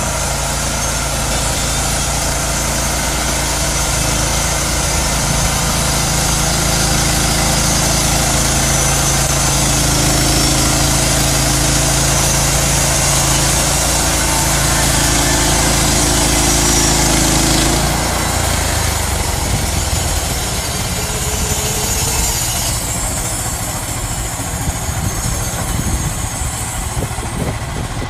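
Portable band sawmill running and cutting a log: a steady engine drone with the hiss of the band blade in the wood. The drone and hiss change about eighteen seconds in, and the hiss drops again a few seconds later.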